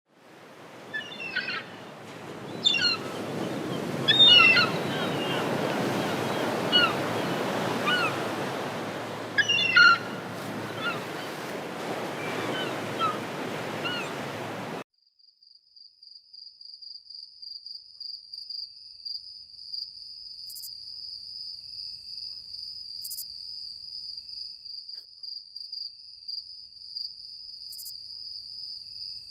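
Seagulls calling, many short downward-sliding cries over a steady rush of surf. This cuts off abruptly about halfway through, and crickets take over with one steady, high, rapidly pulsing trill.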